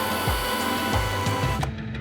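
Background music with a steady kick-drum beat over the steady whir of a cordless upright vacuum cleaner running, which cuts off about one and a half seconds in.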